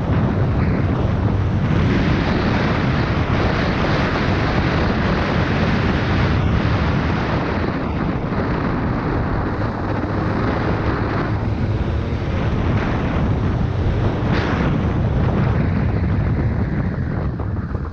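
Heavy wind noise on the microphone over the Suzuki MX125 dirt bike's engine running steadily as the bike is ridden.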